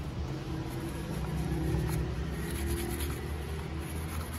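Handling and rubbing noises as a plastic camcorder body is turned in the hands and wiped with a cloth, over a low steady rumble.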